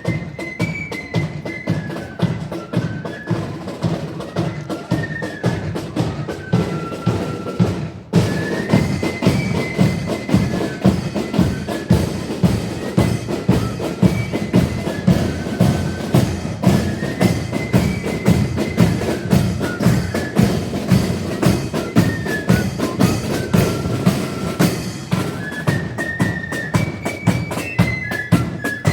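Loyalist marching flute band playing: flutes carry a high melody over bass and snare drums beating a steady march. There is a brief break about eight seconds in, after which the band sounds fuller and louder.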